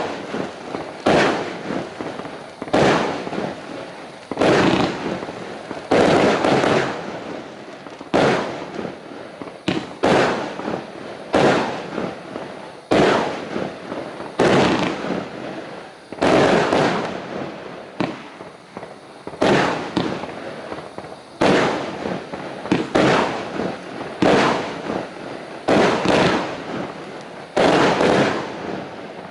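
Argento Hikaru 36-shot 25 mm fireworks cake firing in a steady sequence. Each shot is a sharp bang that trails off, coming about every second to second and a half.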